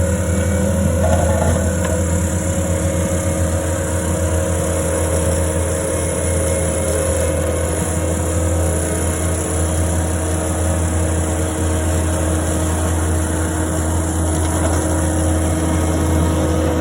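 Caterpillar skid steer's diesel engine running steadily at an even speed.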